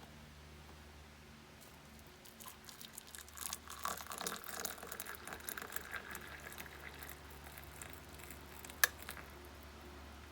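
Small clicks and light rustling, dense for a few seconds, with one sharp click near the end, over a steady low hum.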